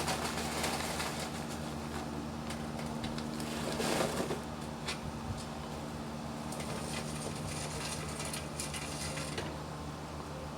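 Steady low mechanical hum, with scattered light clicks and a brief rustle about four seconds in.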